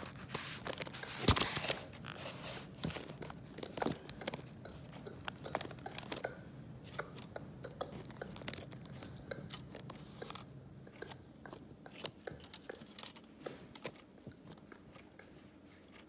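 Irregular crunching and clicking close to the microphone, loudest about a second in and thinning out toward the end.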